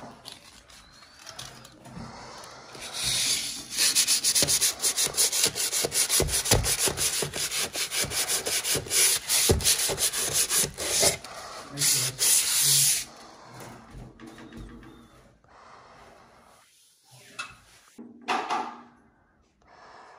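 Hand sanding of dried drywall joint compound on a textured ceiling: rapid back-and-forth scraping strokes that start about three seconds in and stop about ten seconds later.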